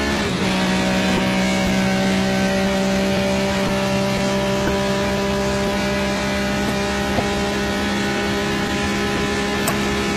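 Ferrari 275 GTB V12 engine running hard through the streets. Its note dips right at the start, then holds steady.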